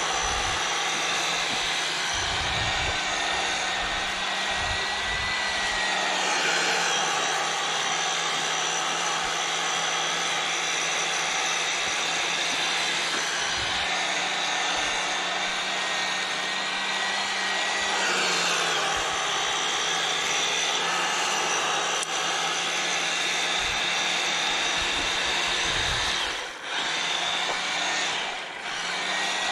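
EGO POWER+ cordless power head driving its 22-inch bristle brush attachment, the spinning brush sweeping through dead lawn grass with a steady electric whir. The sound drops away briefly twice near the end.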